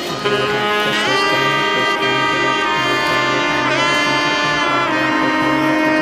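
Background music: a sustained lead melody that bends in pitch, over a steady pulsing bass line.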